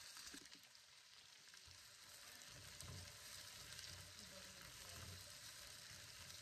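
Faint sizzle of sliced onion frying in oil in a hot wok, with the onion stirred around the pan by a slotted spoon.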